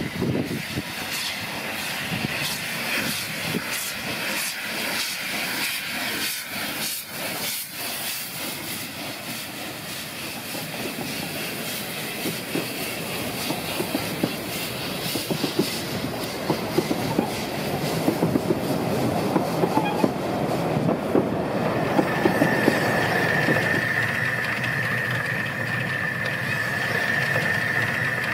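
Narrow-gauge steam locomotive 99 713 working a train past: rhythmic exhaust beats with hissing steam from around the wheels, then the coaches rolling by with clickety-clack over the rail joints. A steady high whine joins in a few seconds before the end.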